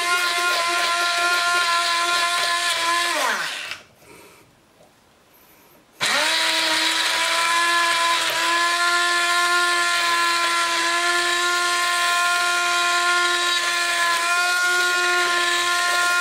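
Hand-held stick blender running with a steady motor whine as it purées chunky vegetable soup in a stainless steel saucepan. About three seconds in it is switched off and winds down in falling pitch, then about two seconds later it starts again abruptly and runs steadily on.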